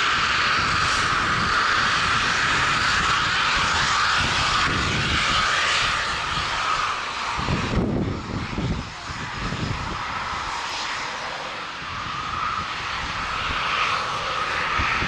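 Harrier GR9's Rolls-Royce Pegasus turbofan taking off and climbing away: a loud continuous jet roar with a steady whine, easing off about halfway through and building again near the end.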